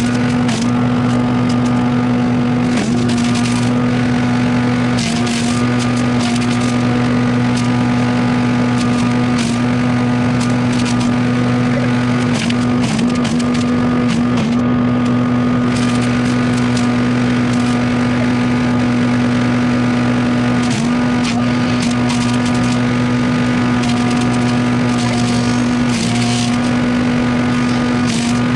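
An engine running steadily at one constant speed, with scattered sharp cracks and clicks over it.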